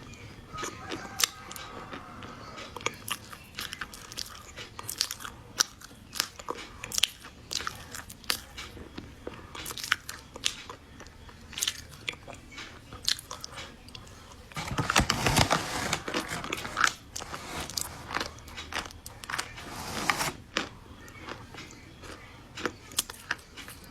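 Close-up biting and chewing of a large chunk of chocolate, with many sharp crunchy crackles as it breaks up in the mouth. A louder, denser spell of crunching comes about two-thirds of the way through, and another shortly after.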